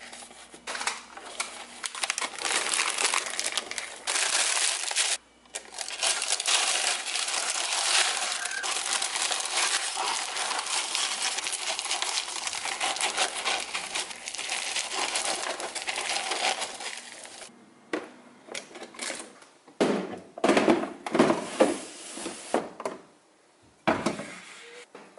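Paper crinkling and the crackly rattle of small frankincense resin lumps being handled and scooped in a clear plastic organizer, broken briefly about five seconds in. In the last several seconds come a few separate knocks as things are set down on a cupboard shelf.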